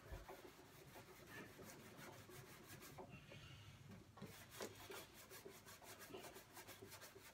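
Faint scrubbing of the wet barbecue lid with a scourer: quick back-and-forth strokes that pause briefly about three seconds in, then carry on.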